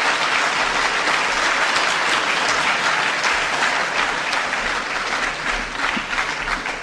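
Audience applauding steadily, the clapping thinning out a little near the end.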